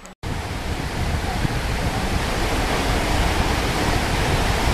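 Rushing water of the Hatzbani stream running over rocky rapids: a steady, loud rush of white water. It cuts in abruptly just after a brief drop-out at the start.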